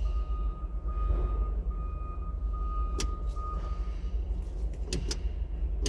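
Steady low rumble from a JCB 505 telehandler, with a faint steady high tone through the first half and a few sharp clicks about three and five seconds in.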